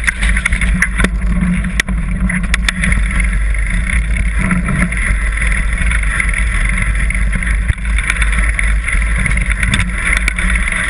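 Mountain bike descending rocky singletrack, heard through a bike-mounted action camera: a steady rumble of wind on the microphone and tyres on loose stones, with scattered sharp clicks and knocks as the bike rattles over rocks, thickest around two seconds in and again near the end.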